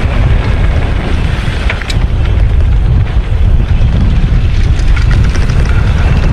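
Wind buffeting the action-camera microphone on a mountain bike riding downhill, with a steady rumble and a few short rattles from the bike over the trail.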